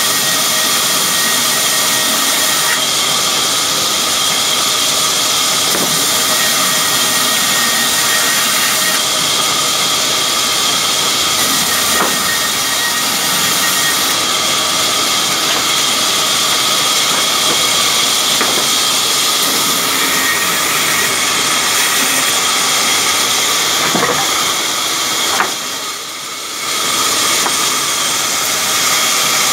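Sawmill band saw running and cutting through planks: a loud, steady hiss of blade in wood that dips briefly near the end.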